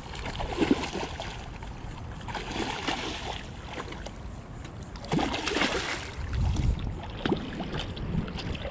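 A hooked snook thrashing and splashing at the water's surface as it is brought to the shore, in three bouts: about a second in, around three seconds in, and around five to six seconds in.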